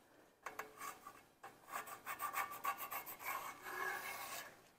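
Pencil point scratching on parchment paper as it traces around the base of a springform pan, a faint run of short irregular strokes that starts about half a second in.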